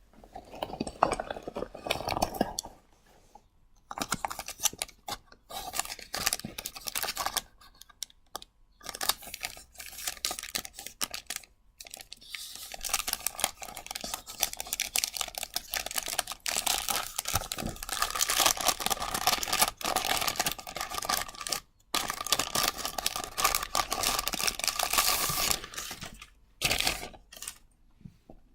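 Plastic packaging crinkling and rustling in the hands as a parcel is opened, in bursts of dense crackling with short pauses between them.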